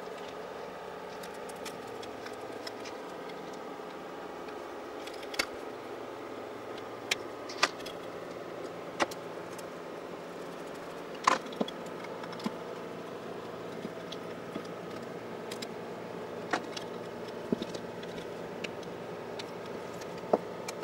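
Small metal clicks and taps from a screwdriver, pliers and loose parts on a sewing machine motor being taken apart, scattered irregularly with the loudest about eleven seconds in, over a steady background hum.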